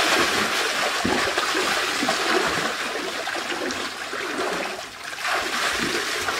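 Water pouring steadily into a shallow pool from a slide chute, with splashing and sloshing as people move and wade through the water.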